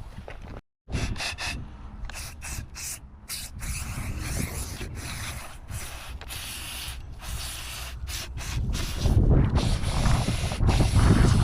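Rubbing and hissing from cleaning the dismantled winch's gear parts: scrubbing and spray-cleaner noise in short, broken stretches. A heavier low rumble joins about nine seconds in.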